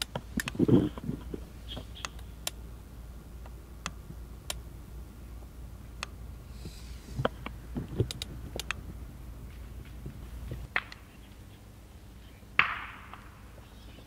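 Scattered light clicks and taps of small gear being handled on a camp table, with a louder knock about a second in and a short rustle near the end.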